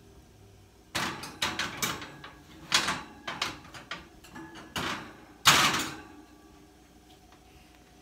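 Metal oven rack sliding and an aluminum baking pan set onto it: a string of sharp clattering knocks over about five seconds, the loudest about five and a half seconds in.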